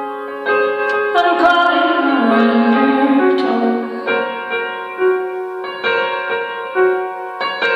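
A slow ballad played live on a stage keyboard with a piano sound: sustained chords struck about once a second. A female voice sings a phrase from about a second in until about three and a half seconds in, and the chords ring on after it.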